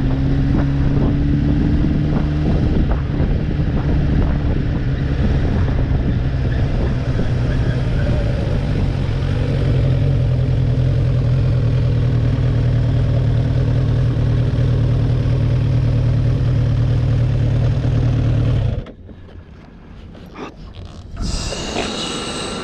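Kawasaki GPZ900R's inline-four engine running at a steady pace, its pitch easing down slightly at first and then holding even, with wind rush over it. The sound drops away abruptly near the end, followed by a quieter, higher whir.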